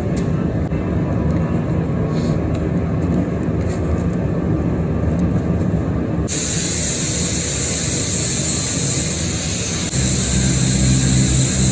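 Angle grinder with a flap disc on steel: a steady low hum, then about six seconds in a loud, sustained hissing grind starts as the disc bites into the metal.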